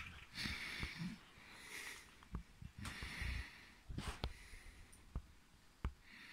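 Faint breathing through the nose close to the microphone, a breath roughly every second, with a few light clicks from the handheld phone being handled.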